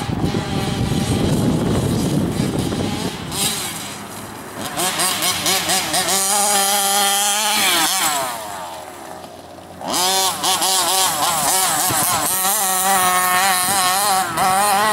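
Small two-stroke petrol engine of a large-scale FG radio-controlled monster truck running and revving, its pitch rising and falling over and over with the throttle. It eases off briefly about eight seconds in, then revs up again.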